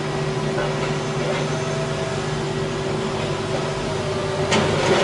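Excavator's diesel engine running steadily while it works on a demolition site, with a couple of sharp crashes of debris about four and a half seconds in.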